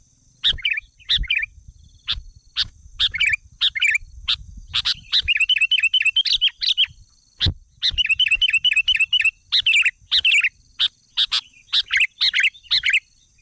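Small birds chirping, with repeated short calls throughout and two fast trills of evenly repeated notes in the middle, over a faint steady high whine.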